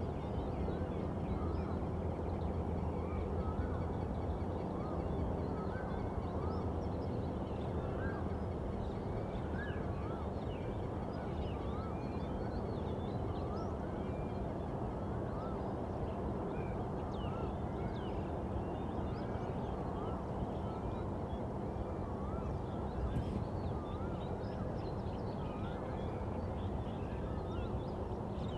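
Birds calling at dawn: many short chirps and calls, some repeating about once a second, over a steady low hum.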